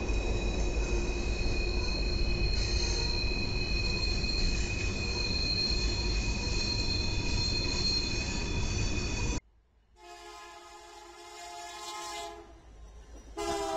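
Freight train rolling past with a steady rumble and a high, sustained wheel squeal from the flanges on a tight curve. It cuts off suddenly about nine seconds in, and a diesel locomotive's multi-tone air horn then sounds a long blast, with a second blast starting near the end.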